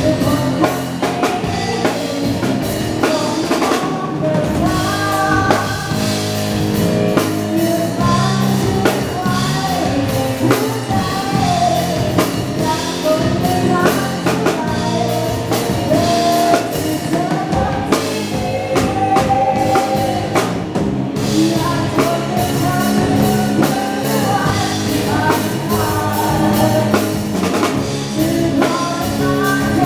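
Live band playing an upbeat dance song: a sung melody over a drum kit beat with other band instruments.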